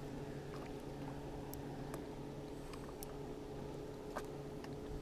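A steady low hum under light, scattered clicks and ticks.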